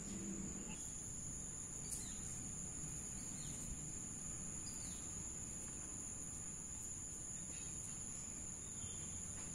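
Steady high-pitched drone of insects, with a few short falling bird chirps over it and a sharp click about two seconds in.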